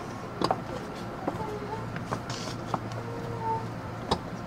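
Interior ambience of a JR 209 series 2100-subseries electric train standing at the platform: a steady low hum with scattered clicks and knocks.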